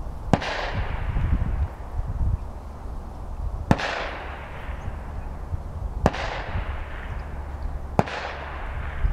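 Shotgun shots fired on a range, four single bangs about two to three seconds apart, each with an echoing tail.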